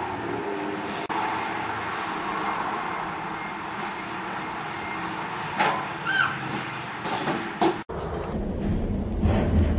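Motor vehicle running on the road, a steady engine and road noise, with a few clicks and a short squeak about six seconds in. Near the end it cuts abruptly to a louder, lower rumble.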